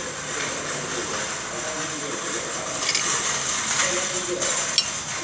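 Pneumatic rivet nut gun running on compressed air: a steady air hiss, with louder bursts of air about three and four seconds in and a sharp click near the end.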